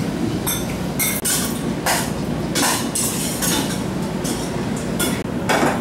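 Restaurant room noise: a steady low rumble with scattered short, sharp clinks and scrapes of a metal spoon against the stew pot and side dishes.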